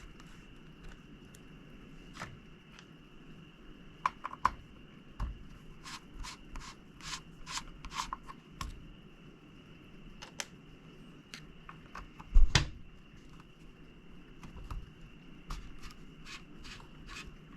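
Small screwdriver backing out the heatsink screws of a graphics card: scattered light clicks and scrapes of the bit on the screw heads and metal, with one louder knock about twelve seconds in.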